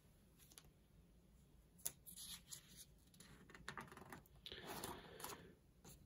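A paper page being turned in a ring-binder manual: faint rustling with a few light clicks, starting about two seconds in.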